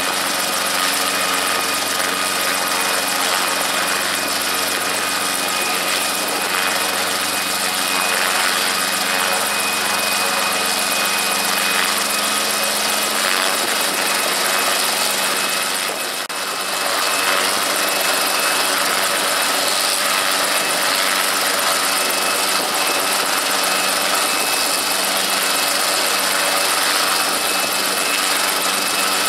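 Brantly B-2B helicopter's Lycoming piston engine running steadily on the ground at low power with the rotors turning, during a slow start-up before lift-off. A thin high whine sits steadily over the engine note, and the sound dips briefly about halfway through.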